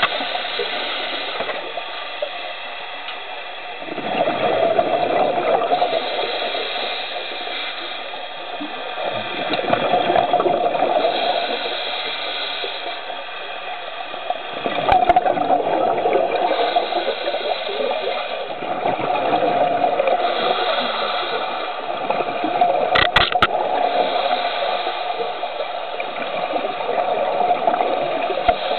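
Scuba diver's breathing heard underwater through a camera's waterproof housing: a muffled rush of exhaled bubbles swells up about every five seconds over a steady hiss. A few sharp clicks come about two-thirds of the way through.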